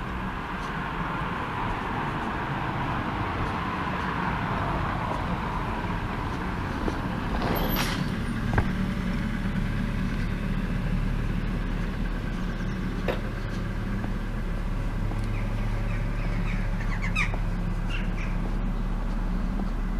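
A car drives past along the street, its engine and tyre noise swelling and then fading over the first several seconds, over a steady low hum, with a few sharp clicks later on.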